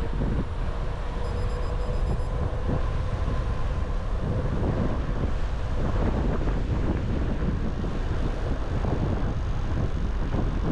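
Wind rushing over the microphone of a moving rider, a steady low rumble with uneven gusty flutter.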